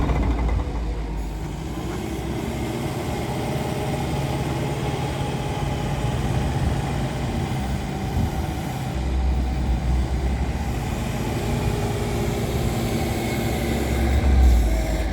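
Diesel engine of a 2020 Takeuchi TL10V2 skid steer running steadily, with a deeper rumble that swells about two-thirds of the way through and again near the end.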